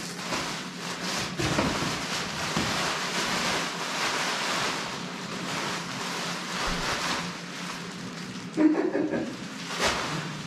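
Packing material being pulled and handled out of a shipping box: continuous crinkling and rustling, with a louder crackle a little before the end.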